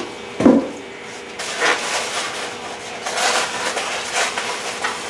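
Paper wrapping rustling and crinkling in several short stretches as a delicate item is unwrapped by hand, with one thump about half a second in.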